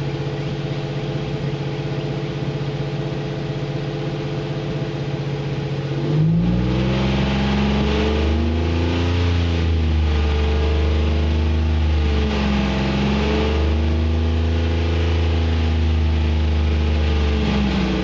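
Car engine idling steadily, then revved about six seconds in and held at a raised speed, its pitch sagging and picking up again several times. This is the engine being run up to burn off Seafoam fuel-system cleaner.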